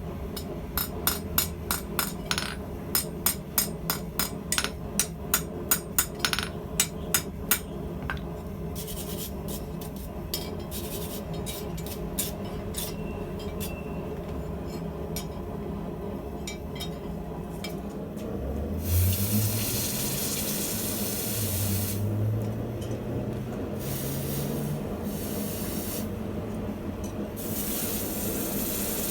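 Hammer striking hot steel on an anvil, about seventeen blows at two to three a second, while forging blacksmith tongs. Later a loud hiss comes and goes in stretches over a steady low hum.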